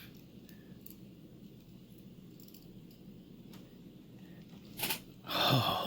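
Faint, scattered metallic clicks and taps from a Yale pin-tumbler lock being taken apart, its pins and springs handled with small tools, with a sharper click about five seconds in.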